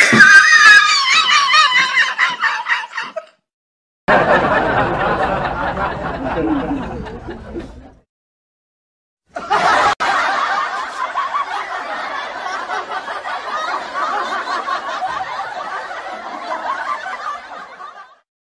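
A person laughing: snickering, giggling laughter in three stretches broken by short silences, the last one the longest.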